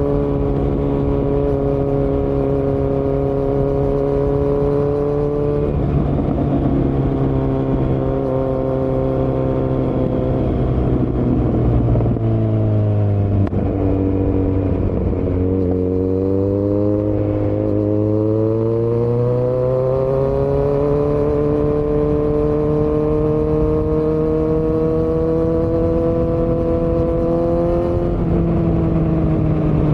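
2018 Kawasaki Z900's inline-four engine running through Delkevic headers and a Yoshimura muffler with no dB killer, on the move. The engine note holds steady, changes pitch at about six seconds, sinks about halfway, then climbs for several seconds as it accelerates, and drops again near the end.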